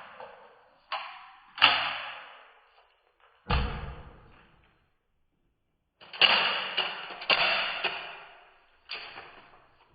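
A string of sharp knocks and clacks from handling a Smith & Wesson 686 revolver and a Safariland Comp III speedloader during a reload. Each knock fades away over about a second. A heavier, bassier knock comes about three and a half seconds in, and a quick cluster follows about six to seven seconds in.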